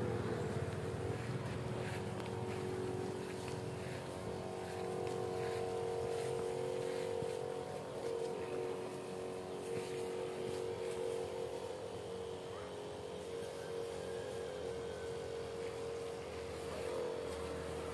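Electric pump of a battery-powered knapsack sprayer running with a steady pitched hum while spraying the foliage of durian trees.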